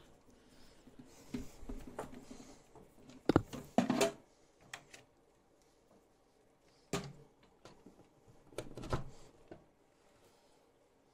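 Scattered knocks, clicks and rattles of equipment being handled on a workbench, most likely the hot air rework station being plugged in and set up. The loudest knocks come about three and four seconds in, with more about seven and nine seconds in.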